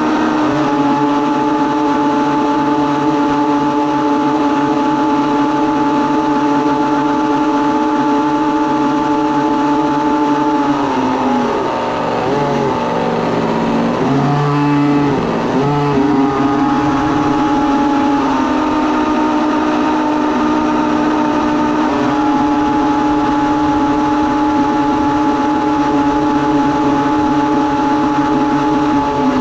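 Small toy boat's motor running at speed with a steady whine over water spray. About a third of the way in, the pitch drops and wavers for a few seconds as the boat slows, then climbs back and steps up twice as it speeds up again.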